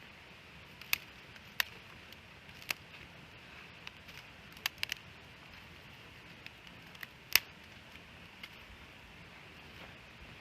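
Wood campfire burning, with a steady soft hiss and a handful of sharp, irregular crackling pops, the loudest a little past seven seconds in.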